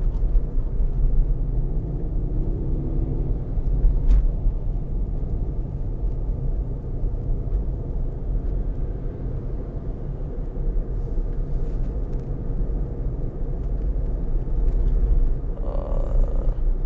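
Tyre and road noise heard inside the cabin of a Tesla Model Y electric car cruising on the freeway: a steady low rumble with no engine note. A single brief click about four seconds in.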